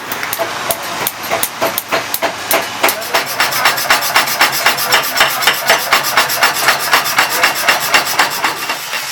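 Hammer striking metal in sharp blows, irregular at first, then settling about three seconds in into a quick, even beat of about five strikes a second.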